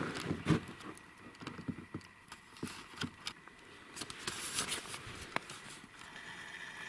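Footsteps crunching in snow, uneven and a few a second, with a brief rustle about four seconds in.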